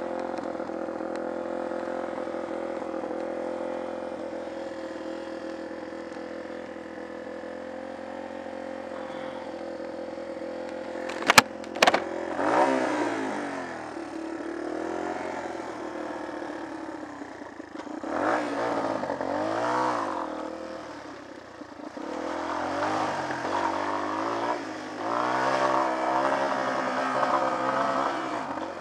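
Off-road motorcycle engine running steadily, then two sharp knocks about eleven seconds in, after which the engine revs up and down repeatedly under throttle.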